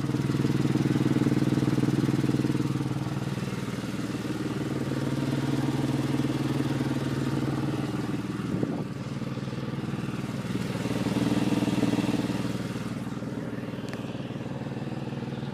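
Porsche 996 Carrera 2's flat-six engine running steadily, making a strange noise that came on suddenly and whose cause is unknown. The sound swells and eases a few times, with a brief knock about nine seconds in.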